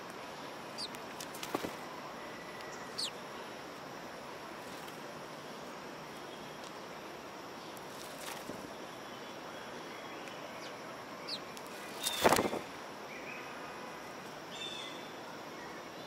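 House sparrows giving a few short, scattered chirps over steady background noise, with one loud brief rustle close to the microphone about twelve seconds in.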